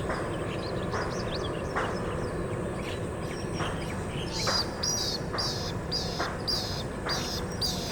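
Coot giving short, sharp clicking calls, about one a second. From about halfway a faster run of higher-pitched chirps joins in and becomes the loudest sound.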